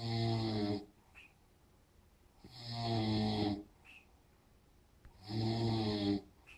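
Snoring: three long, deep snores about two and a half seconds apart, each followed by a short high whistle.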